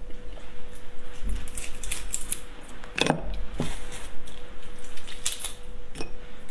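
Raw shrimp being peeled and pulled apart by hand, close up: shell crackling and clicking in scattered small bursts, with a louder crack about three seconds in, over a faint steady hum.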